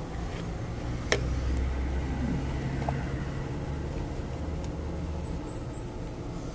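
Steady low mechanical hum, with a sharp click about a second in.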